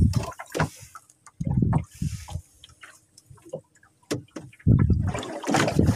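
Water sloshing with a few sharp knocks inside a small wooden boat's hull, mixed with loud, rough rumbling bursts of microphone handling or wind noise that grow strongest near the end.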